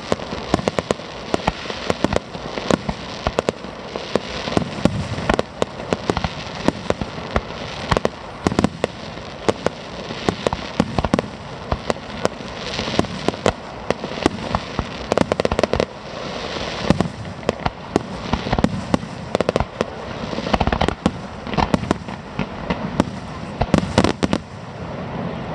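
Fireworks display: a dense, continuous barrage of sharp bangs from bursting shells, many per second, over steady crackling.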